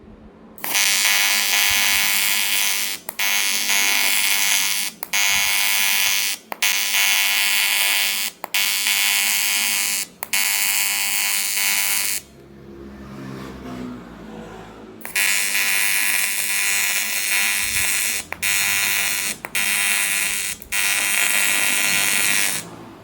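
AC TIG welding arc on aluminium, buzzing steadily and loudly with brief dropouts every second or two. The arc stops for about three seconds midway, then strikes again and buzzes until just before the end.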